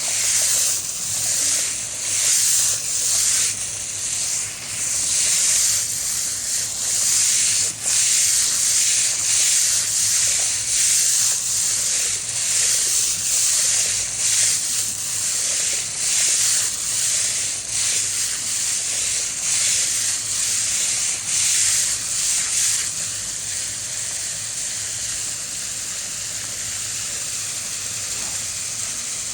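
Loud rushing hiss of water flowing through a water treatment clarifier/filter tank, surging in uneven waves about once a second, then settling to a steadier, slightly quieter hiss for the last several seconds.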